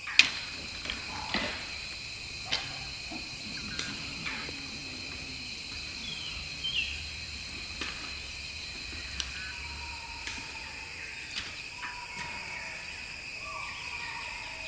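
Forest ambience: a steady high insect chorus, broken by a few sharp clicks or snaps in the first few seconds and a brief bird chirp about halfway through.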